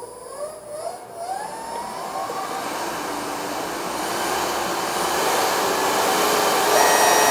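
Nova Viking drill press's direct-drive DVR motor speeding up from 950 toward 4,700 rpm. Its whine rises in pitch and the whir grows steadily louder as the speed is raised on the electronic control panel.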